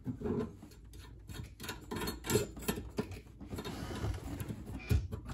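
Adjustable wrench working a brass compression nut on a copper gas pipe: scattered small metal clicks and scrapes as the nut is loosened and then turned by hand, with a sharper knock near the end.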